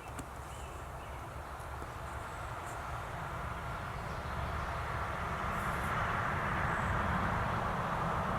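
Distant vehicle noise: a steady rumble that slowly grows louder, levelling off about six seconds in.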